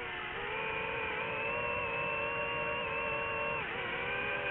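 FPV quadcopter's electric motors and propellers whining steadily, the pitch dipping about three and a half seconds in as the throttle eases, over rushing air noise.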